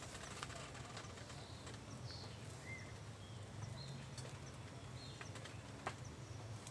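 About five short bird chirps scattered through the middle, over a steady low rumble, with a few sharp clicks from the dry bamboo-leaf litter.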